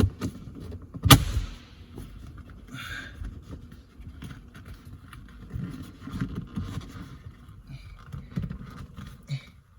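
Hands working a rubber shift boot over a short shifter: one sharp knock about a second in, then scattered rubbing, scraping and small clicks of rubber and plastic parts.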